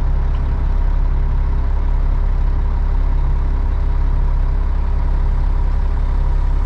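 Concrete mixer truck's diesel engine running steadily, heard from inside the cab: a constant low drone with no change in pitch.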